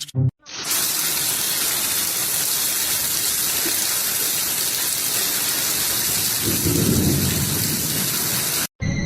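Steady rushing hiss of falling water, with a low rumble joining about six and a half seconds in. It cuts off abruptly near the end.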